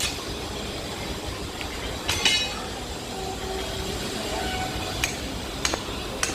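Hammer blows on steel railway track fittings: a few sharp metallic clinks a second or more apart, one about two seconds in ringing on. A steady rumbling noise runs underneath.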